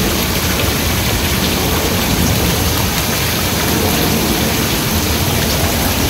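Backyard koi pond's rock waterfall pouring steadily into the pond.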